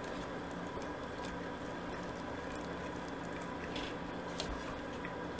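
Silicone spatula stirring a thick fudge mixture in a saucepan: quiet, soft squishing and scraping against the pan, with a few faint scrapes.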